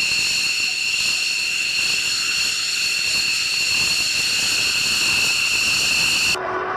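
Aircraft turbine engine whining steadily at a high, constant pitch over a rush of engine noise, then cut off abruptly near the end.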